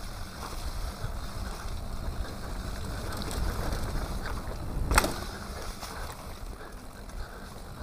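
Mountain bike rolling down a dirt singletrack: a steady low rumble and rattle of the tyres and bike over the trail, with wind on the microphone. There is one sharp knock about five seconds in.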